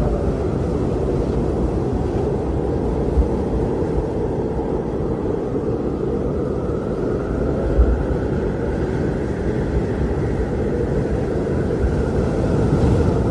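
Blizzard wind blowing steadily, a deep rumble under a faint howling tone that slowly drifts up and down in pitch.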